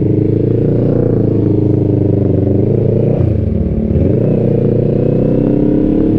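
Motorcycle engine running steadily while riding, heard from the bike itself. Its pitch dips briefly about three seconds in, then climbs again.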